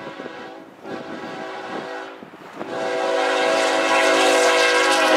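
Air horn of a CN ES44AC Gevo locomotive sounding as it approaches at track speed: a blast, a short break about two seconds in, then a long blast that grows steadily louder as the train nears.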